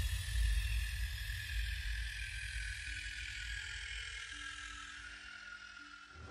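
Background music: a low bass rumble under a slowly falling synth tone, with a few held notes coming in, fading out steadily.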